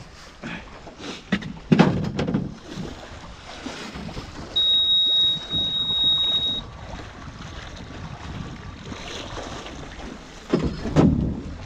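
Wind buffeting the microphone, with a few dull thumps near the start and again near the end. The loudest sound is a single steady high-pitched tone lasting about two seconds, midway through.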